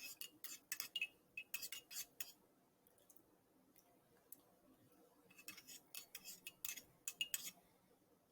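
Faint light clicks and taps of small hard objects being handled, in two short flurries with a quiet gap between.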